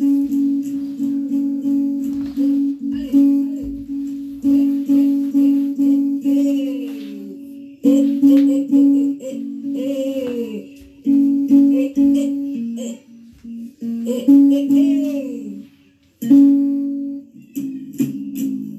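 Music: a plucked-string backing of short repeated notes with a voice gliding over it, breaking off briefly about sixteen seconds in.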